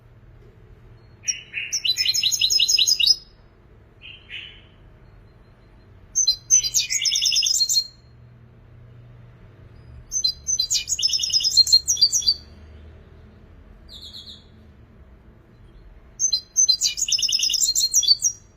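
European goldfinch singing: four bursts of rapid, twittering trilled phrases, each about two seconds long, with a couple of short single calls in the gaps between them.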